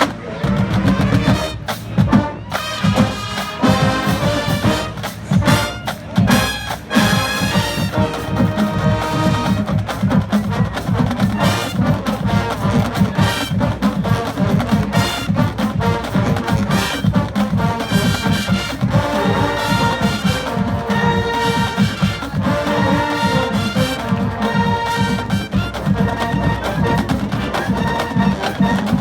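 A marching band's brass section and drumline playing a lively tune at full volume, with trumpets and trombones over a steady drum beat.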